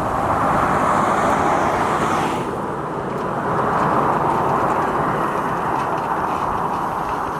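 A steady rushing noise of a vehicle in motion, its hiss dropping away sharply about two and a half seconds in.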